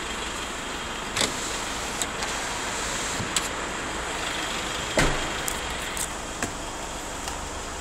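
Several short knocks and clicks from handling and moving around inside a parked car, the loudest about five seconds in, over a steady background hum.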